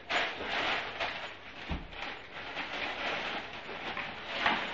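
Crinkling and rustling of gift wrapping and packaging as presents are handled and pulled from a cloth sack, with a soft thump about two seconds in.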